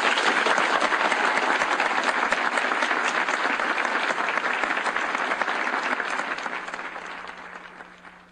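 Audience applauding after a speech, starting suddenly and fading out over the last couple of seconds, with a faint steady hum underneath.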